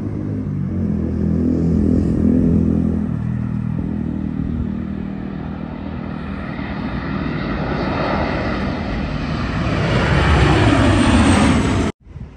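Passenger aeroplane flying low overhead: its engines grow steadily louder and peak near the end with a falling pitch as it passes, then the sound cuts off abruptly.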